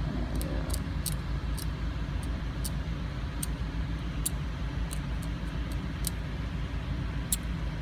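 Steel hand dental scaler scraping tartar from a small dog's teeth: short, sharp, irregular ticks and scrapes, about two a second, over a steady low rumble.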